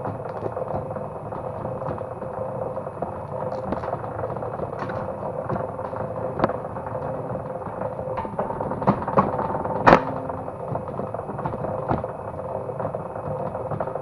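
Motor-driven cable stripping machine running as a cable is fed through its blades: a steady hum with irregular clicks and knocks, and one sharp knock about ten seconds in.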